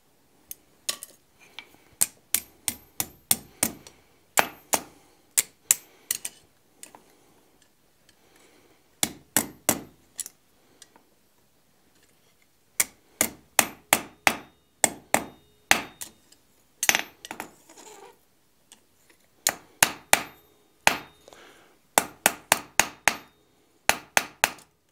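Hand hammer striking a hot quarter-inch round bar on a steel anvil to bend it in half. Quick blows come in four runs separated by short pauses, most with a brief high ring from the anvil.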